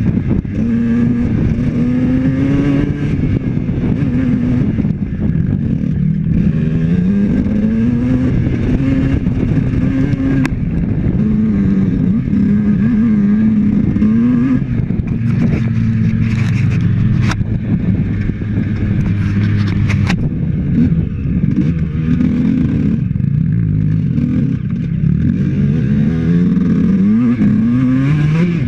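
Honda CR 125 two-stroke dirt bike engine running on a trail ride, its pitch rising and falling continuously with the throttle. A few sharp clicks or knocks cut through at intervals.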